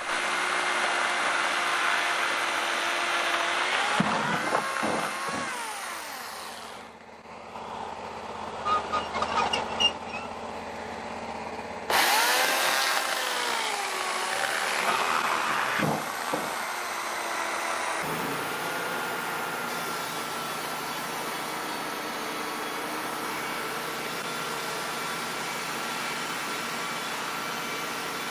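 Band sawmill machinery running, with its motor's pitch rising and falling a few times and the sound changing abruptly twice. From about two-thirds of the way in it settles into a steady run with a high whine, as the blade saws through a rotten pine log.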